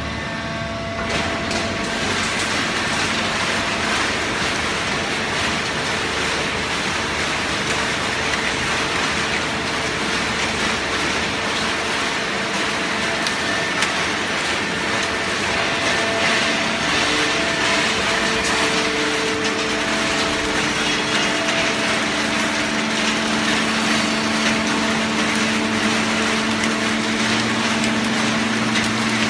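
Hydraulic paper scrap baler running: a steady loud machine noise with a hydraulic pump hum whose tones shift now and then.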